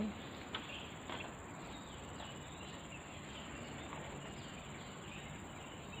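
Faint outdoor ambience with a steady, high-pitched insect drone under a soft noise bed, and a couple of faint clicks in the first second or so.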